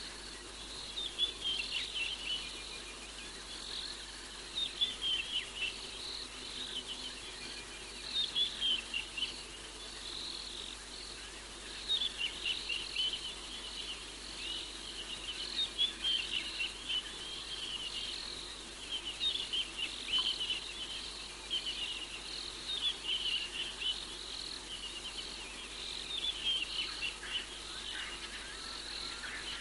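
Night chorus of small calling animals: clusters of high-pitched chirps repeating every second or two over a steady background hiss.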